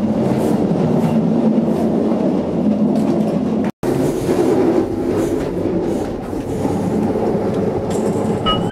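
Talgo passenger train running at speed, heard from inside the cars: a loud, steady rumble and rattle of the running gear. It breaks off for an instant a little before halfway.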